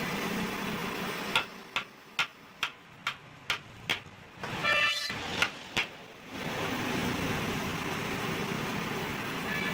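Workshop noise: a run of about seven sharp knocks, roughly two a second, then a short squeal and two more knocks. A steady running noise starts about six and a half seconds in.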